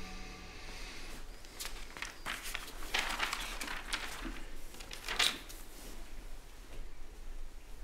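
Soft rustling and shuffling with a handful of short scuffs, the strongest about three and five seconds in. A held musical note dies away at the very start.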